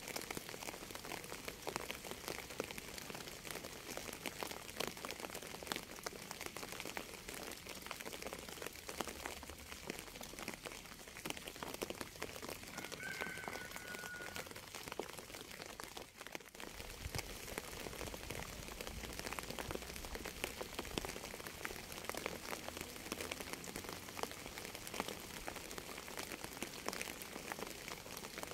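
Steady rain falling, with many separate drop hits heard through it. A brief faint tone sounds about 13 seconds in.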